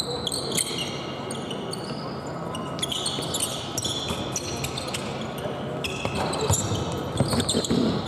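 Basketball shoes squeaking on a hardwood court again and again as players run, with a ball being dribbled; the bounces come thickest near the end. The sound echoes in a large, nearly empty arena.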